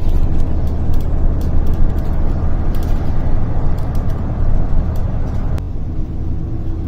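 City bus heard from on board while under way: steady low engine and road rumble with scattered light rattling clicks. The hiss above the rumble drops away suddenly about five and a half seconds in.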